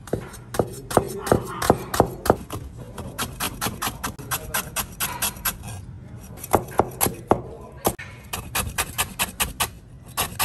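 Kitchen knife slicing lemongrass stalks into thin rounds on a plastic cutting board: a quick, regular run of sharp chops, the blade striking the board about four or five times a second. The chopping breaks off briefly about halfway through, then picks up again a little faster.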